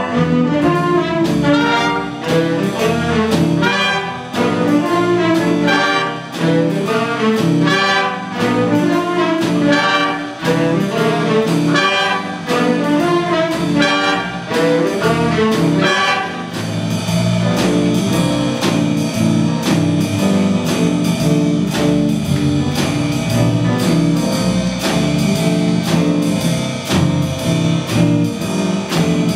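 Jazz big band playing, with trumpets, trombones and saxophones over piano and drums. The full band comes in sharply at the start with repeated accented figures, and about sixteen seconds in it moves to longer held chords.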